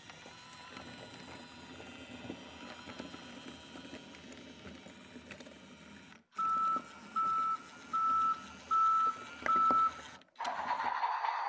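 BRIO Smart Tech Sound battery toy engine running quietly along wooden track, then five evenly spaced electronic beeps from the engine, each about half a second long. Near the end a louder hissing noise starts.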